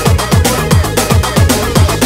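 Electronic house-music DJ remix playing loud, with a fast, steady kick-drum beat of about four hits a second.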